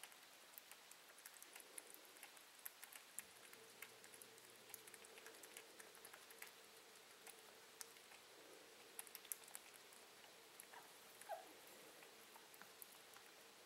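Faint, irregular small clicks of a baby cottontail rabbit nibbling at a wire cage bar. A faint steady hum sets in about three seconds in.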